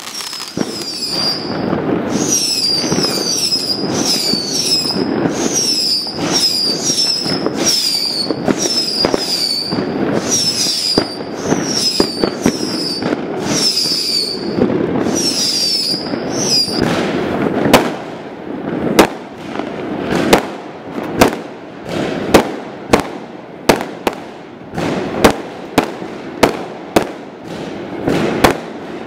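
Fireworks going off: for the first half, a dense crackle with many high whistles, each falling in pitch, about two a second; then the whistles stop and a string of separate sharp bangs follows, about one or two a second.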